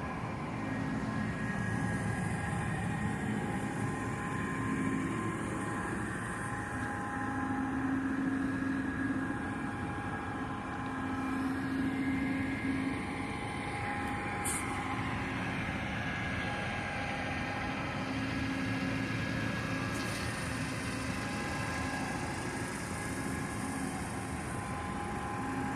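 Passenger train running: a steady rumble with humming tones that swell and fade every few seconds.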